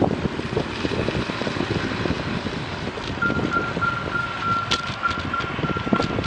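Wind buffeting the microphone and tyre hiss of a bicycle riding on a wet road. About three seconds in, a steady high-pitched tone with small breaks starts and keeps going.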